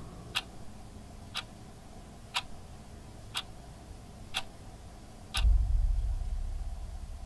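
Wall clock ticking once a second, six ticks in all. Then, about five and a half seconds in, a loud deep rumble starts and slowly fades.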